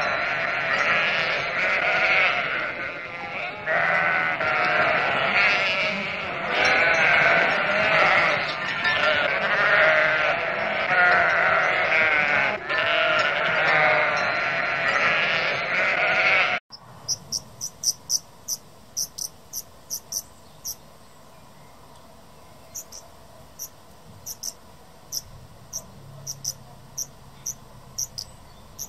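A flock of sheep, ewes and lambs, bleating over one another for about sixteen seconds. The sound then cuts off abruptly to much quieter, very high, short chirps repeating in quick runs.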